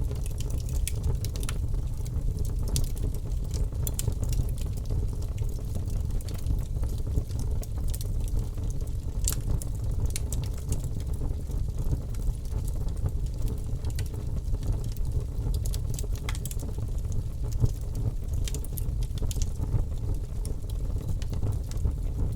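Bonfire burning with a steady low rumble and frequent sharp crackles and pops from the burning wood.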